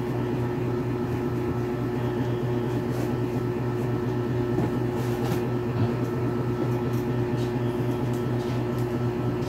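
Steady low hum of a running machine, with a few faint taps and rustles as a sneaker and its box are handled.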